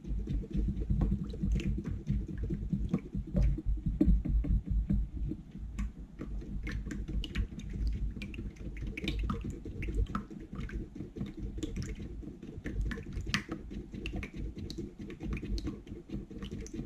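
Glue, water, food colouring and glitter being stirred together in a bowl by hand: an irregular, continuous run of small clicks and wet knocks over a low, uneven rumble.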